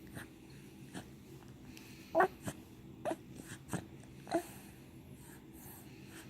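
Baby hiccupping: a run of five short, sharp hics over about two seconds, some with a little voiced squeak.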